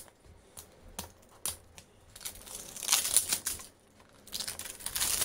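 A small cardboard product box being unsealed and opened by hand. There are a few light clicks and taps in the first two seconds, then two spells of scratchy scraping and rustling as the seal is cut with a blade and the lid is worked open.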